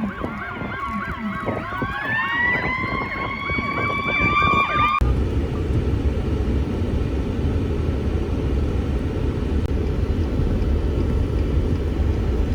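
A flock of geese honking, with a rising siren-like wail that climbs and then holds its pitch. About five seconds in this cuts abruptly to a loud, steady rush of blizzard wind buffeting the microphone.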